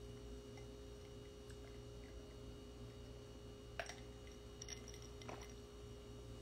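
Quiet room tone with a steady faint electrical hum, broken by a few faint clicks, the sharpest about four seconds in.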